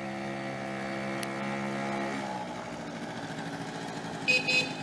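Yamaha Razz 49cc two-stroke scooter engine running hard as it approaches. Its pitch rises slightly and it gets louder, then drops about two seconds in as it backs off or passes. Near the end two short high-pitched chirps stand out.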